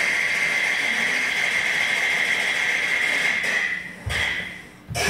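Peking opera accompaniment holding one long, steady high note that fades out about three and a half seconds in, followed by two low thumps near the end.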